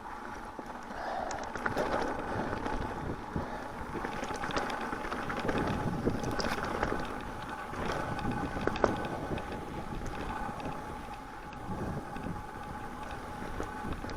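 Mountain bike ridden at a slow pace on a dirt and snow trail: steady tyre noise with scattered clicks and rattles from the bike, and wind buffeting the microphone.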